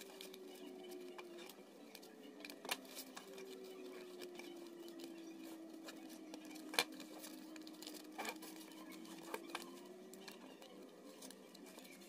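Aluminium foil paper crinkling and rustling as it is folded and pressed into shape by hand, with a few sharp crackles, the loudest near the middle. A faint steady hum that slowly wavers in pitch runs underneath.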